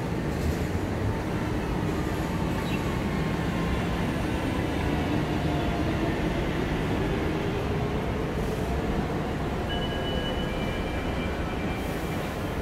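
An MRT train running along the track, a steady rail noise with a faint motor whine that rises in pitch through the middle.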